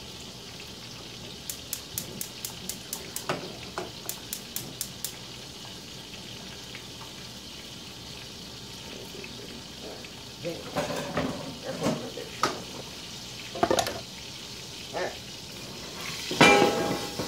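Chicken thighs frying in a covered pan, a steady sizzle with a run of quick crackling pops in the first few seconds. From about two-thirds of the way in comes the clatter of the pan and lid being handled, with the loudest knock near the end.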